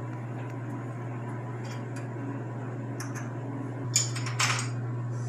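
A few light metallic clicks and clinks as the edge finder is taken out of the milling machine's spindle, over a steady low hum.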